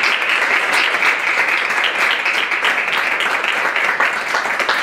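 Audience applauding: dense, steady clapping, louder than the talk around it.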